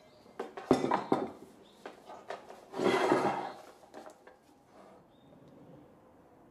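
A metal drill stand with an electric drill mounted in it is set down on a wooden workbench with a sharp knock, followed by smaller clatters. About three seconds in comes a longer rough scraping rustle as the stand and its power cord are handled, then a few small clicks.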